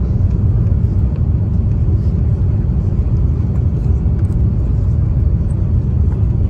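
Steady low rumble of an Airbus A350-900 in flight, heard inside the cabin: its Rolls-Royce Trent XWB engines and the rush of air along the fuselage during the descent.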